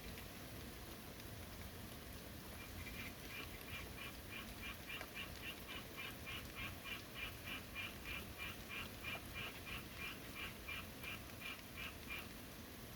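Steady rain, with an animal's rapid run of short, evenly spaced calls, about four a second, starting a few seconds in and stopping about a second before the end.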